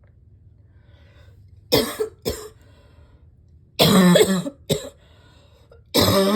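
A person coughing hard in bouts: two quick coughs about two seconds in, a longer, harsh coughing fit near the middle with a short cough after it, and another fit starting near the end. A persistent cough that is still bad.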